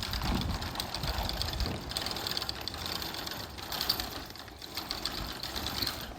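Rope running through the pulleys of a tarp roll-up door as it is hauled up, with a fast, steady rattling clatter.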